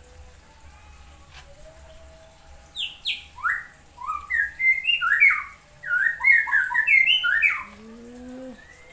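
A songbird singing a rapid run of short, clear chirps and whistled notes, starting about three seconds in and lasting nearly five seconds.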